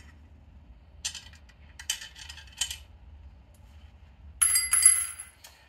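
Light metallic clicks of a hand Torx driver working the T30 screws on a BMW R18 B's upper engine cover, then about four and a half seconds in a bright metallic clink that rings for under a second.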